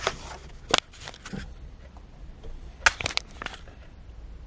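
Handling noise: a few sharp clicks and knocks in quick clusters as something is set in place and adjusted, over a low steady hum.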